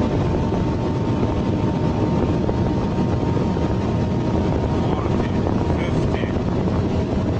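A car driving steadily, a continuous engine and road drone that holds an even pitch and level without revving up or down.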